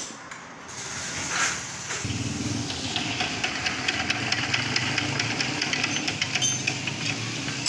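Single-cylinder stationary diesel engine (a 'Peter' engine) firing up about two seconds in, then running steadily with the rapid, regular clatter of a diesel.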